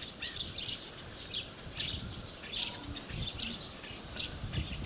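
Common starling singing: a quick, varied run of short chirps, clicks and whistles, over a low rumble.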